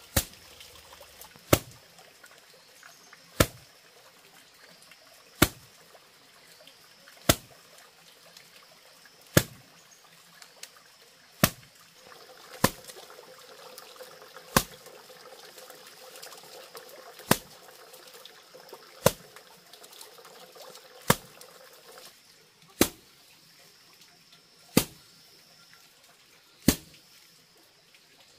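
Sharp single clicks or taps, one about every two seconds, over a faint steady hiss.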